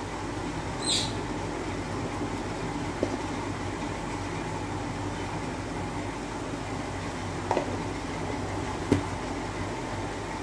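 Omelette cooking on a hot iron tawa: a steady low rumbling noise with a few faint pops. There is a brief high squeak about a second in.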